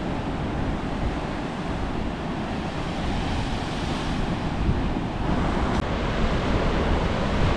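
Ocean waves and surf with wind buffeting the microphone, a steady rushing noise.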